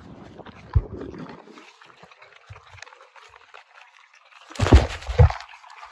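A pony nosing at a phone held against its face: fur brushing and muzzle bumping the microphone. There is a thump about a second in and a louder run of knocks past the four-second mark.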